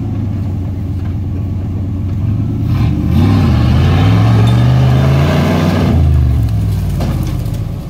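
Off-road rig's engine idling, then revved up for about three seconds with its pitch rising and falling, before settling back to idle.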